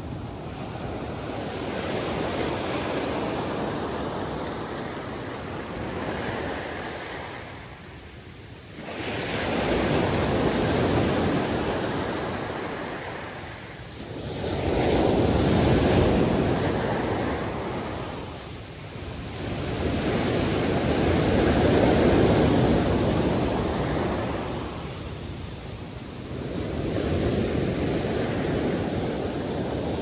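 Sea waves washing in and drawing back, in slow surges that rise and fade about every five to six seconds.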